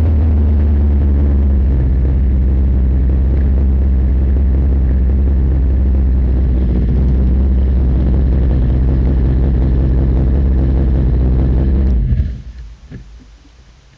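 Formula 3 race car's engine running steadily at low revs while the car rolls slowly to a stop. It is switched off about twelve seconds in and the sound cuts out suddenly, leaving a few faint clicks.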